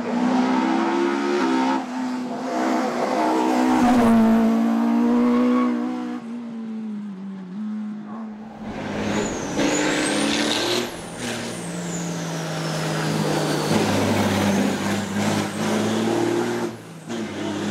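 Racing car engine revving hard under acceleration, its pitch climbing and then dropping sharply at each gear change. Partway through, a thin high whine rises and then falls away over several seconds.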